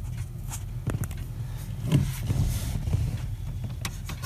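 Handling noises under a pickup's dash: scattered clicks and brief rustling as hands and the camera brush past wiring and trim, busiest about two seconds in, over a steady low hum.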